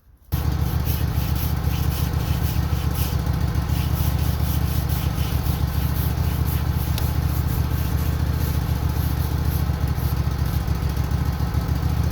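Wood-Mizer LT15 Go portable band sawmill running, its engine steady and loud. It cuts in suddenly just after the start.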